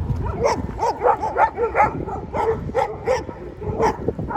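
Dogs barking at passers-by: a quick, uneven run of about ten short barks.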